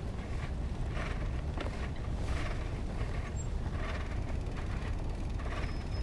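Wind rumbling over the microphone, with soft crunching sounds about every half second or so.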